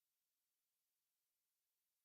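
Near silence: faint digital hiss.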